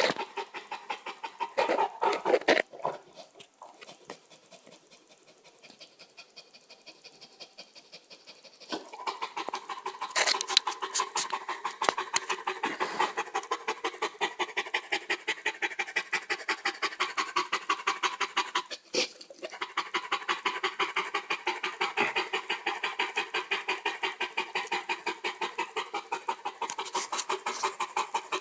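Dogue de Bordeaux panting heavily in quick, even breaths. The panting fades to faint for several seconds near the start, then picks up strongly again about nine seconds in.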